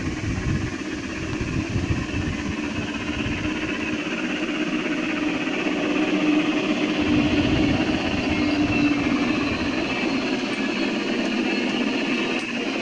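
G-scale model train running on an outdoor garden railroad track: a steady rolling, mechanical noise, with a low rumble through the first half that stops about seven seconds in.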